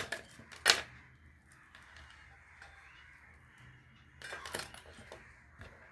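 Parts being handled on a workbench: a couple of short knocks and rustles at the start, a quieter stretch, then another cluster of scraping knocks about four seconds in.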